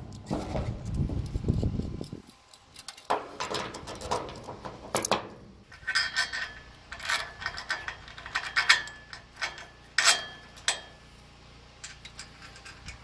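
Steel ratchet strap buckles being handled and fitted onto a shipping container's steel mounting brackets: irregular metallic clicks and clanks, some with a brief ring, after a low rumble in the first couple of seconds.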